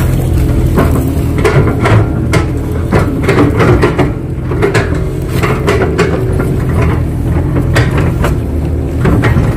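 Kato crawler excavator's diesel engine running steadily under hydraulic load, heard from inside the cab, as the bucket presses and smooths wet mud on top of a bund. Many short knocks and clanks from the working machine are scattered over the engine hum.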